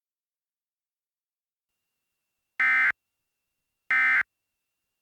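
Two short electronic data bursts from the Emergency Alert System's SAME encoder, just over a second apart: the end-of-message (EOM) code that closes an alert.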